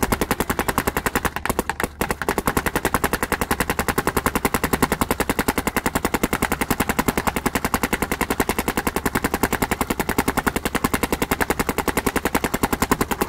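Dye M2 paintball marker firing a rapid, even, continuous string of shots, with a brief break about two seconds in.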